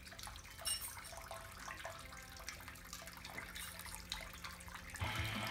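Faint trickle of liquid running through hoses and valves on cooler mash tuns, with scattered light drips and ticks over a low steady hum. Background music comes in near the end.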